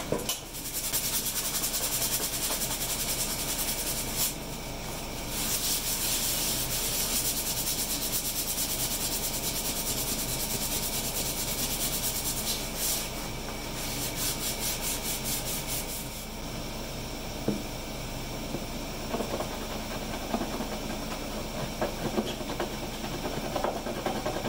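Sandpaper scratching on the exposed surface of a plastic fuel tank: a steady hiss in three long spells with short pauses between them, the last spell in quick regular strokes. After that comes quieter rubbing and handling with a few light knocks.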